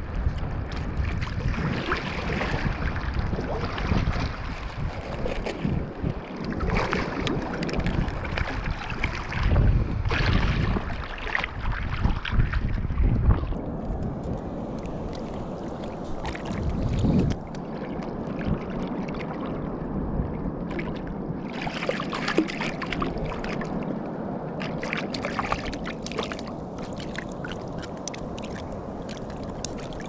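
Water sloshing and splashing around a float tube as fins kick and a fishing line is hauled in by hand, with wind gusting on the microphone through the first half. The wind rumble drops away about halfway through, leaving steadier water noise with a few brief splashes.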